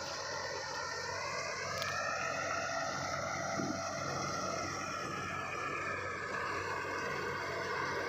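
Self-propelled combine harvester running while it cuts wheat: a steady machinery hum with a whine over it. The whine's pitch rises slightly about two seconds in and then eases.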